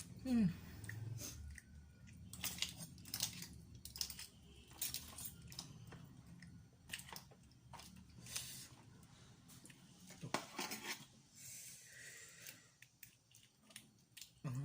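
Boiled seafood being eaten close to the microphone: irregular chewing and crunching with many sharp clicks and cracks.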